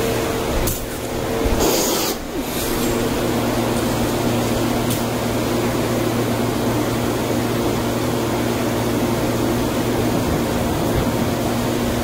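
Steady roar of a glassblowing studio's gas-fired glory hole and fans, with a constant low hum under it. It dips briefly about two seconds in.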